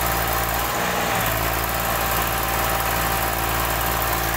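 Tractor diesel engine idling steadily, heard close up, with an even low rumble.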